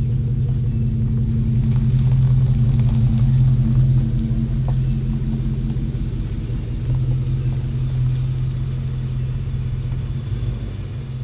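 Chevrolet pickup truck engine running, a steady low rumble.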